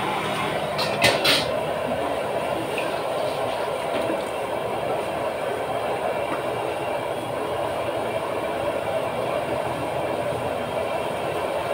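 Steady roaring hiss of wok cooking at a fried-rice stall, with a couple of sharp metal clinks about a second in.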